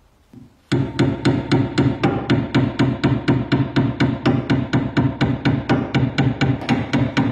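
Hammer striking the pivot pin on the arm of a rusty iron bread cutter clamped in a vise: rapid, even blows of metal on metal, about four a second, starting about a second in.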